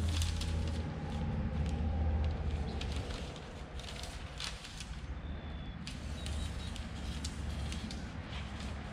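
Paper rustling and crackling in short bursts as a sheet is handled and pressed onto tape strips, over a steady low rumble that is louder in the first half.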